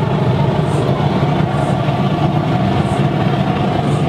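Waste-vegetable-oil burner with a forced-air blower running steadily inside a brick-lined steel-drum furnace, a constant rushing, rumbling noise of flame and fan. It is burning short of full power, which the owner puts down to too little oil supply.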